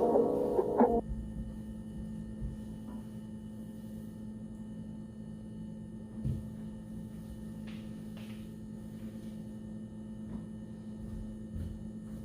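Music cuts off about a second in, leaving a steady, even electrical hum at one fixed pitch, with a few faint clicks and knocks.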